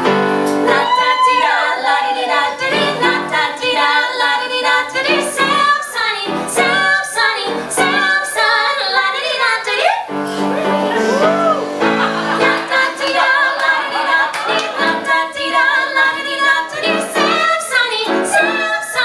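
Two women singing a musical-theatre duet with live piano accompaniment.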